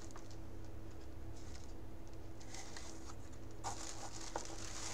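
A few soft taps and rustles from a cardboard box and paper packing being handled, over a steady low electrical hum.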